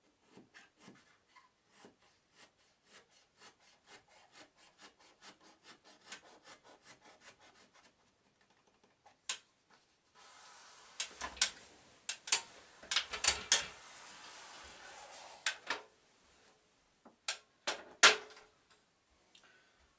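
Sharp blade scoring and cutting thermal wall liner paper, with the paper rubbed and pressed against the wall. Faint quick ticks, about four a second, come first; about ten seconds in, louder scraping and rubbing with sharp scratches takes over.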